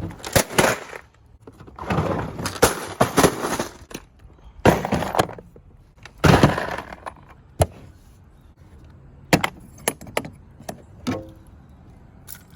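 Plastic tool organizer cases (DeWalt ToughSystem and Milwaukee Packout) being dropped and crashing to the ground several times, each hit followed by small parts rattling inside. Near the end come a few sharp, lighter knocks.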